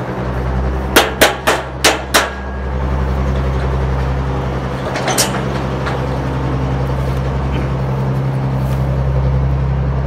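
Hammer blows on a wooden fence post fixing a corrugated metal rail: five quick strikes about a second in, then one more a few seconds later. A steady low machine hum runs underneath.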